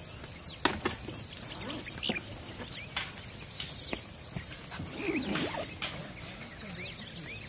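Steady, high, finely pulsing insect chorus, with scattered short chirps over it and a few sharp clicks just under a second in.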